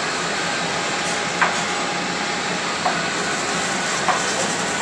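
Commercial kitchen din: the steady rushing of ventilation fans over the cooking line, with a few light clinks of pans or dishes, about a second and a half in, near three seconds and after four seconds.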